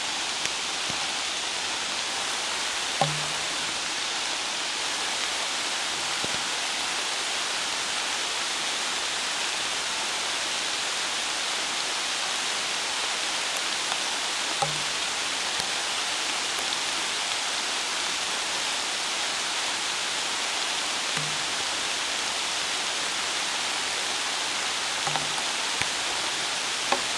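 Steady rushing hiss of river rapids mixed with falling rain, with a few faint short knocks scattered through it.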